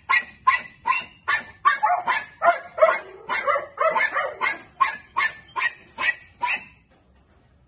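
A dog barking in a quick, even run of short barks, about two or three a second, that stops near the end.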